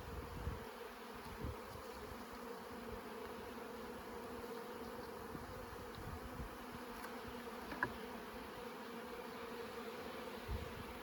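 Honeybees buzzing steadily around an opened hive, with one faint click about three-quarters of the way through.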